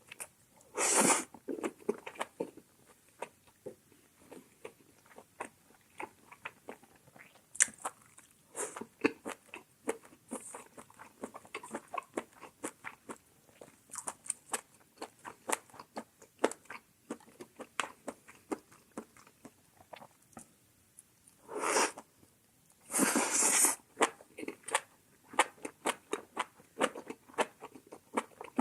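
A person chewing food close to the microphone: steady wet clicks and smacks of chewing throughout. Three louder, longer bursts of noise come about a second in, and twice again near the end.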